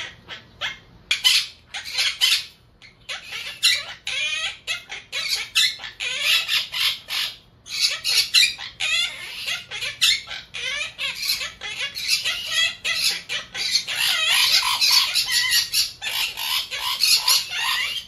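Monk parakeets chattering and squawking in rapid, overlapping calls, busiest and loudest from about three-quarters of the way in.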